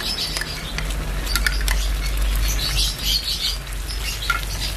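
Chopped shallots, garlic, ginger and chilies with tomato and chili sauce sizzling in hot oil in a wok, crackling with scattered small pops, over a steady low hum.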